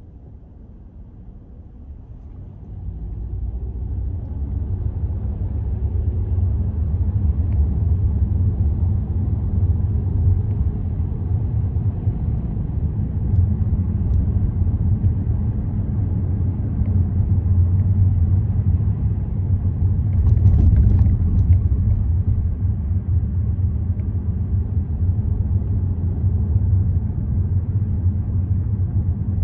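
Car driving on city roads: a steady low rumble of road and engine noise, growing louder about three seconds in and then holding steady.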